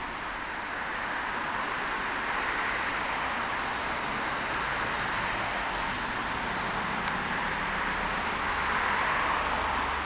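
Small brook flowing steadily over rocks, a continuous even rush of water. A few faint, short high chirps sound in the first second.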